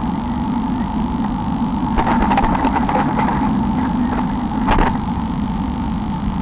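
Steady electrical hum and hiss from a nest-box camera's audio, with scratchy rustling from about two seconds in and a sharper scratch near five seconds in as a blue tit shifts about in her nest of moss and hair.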